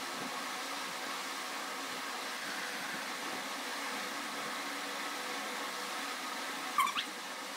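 A steady whirring hiss, with one short rising squeak about seven seconds in.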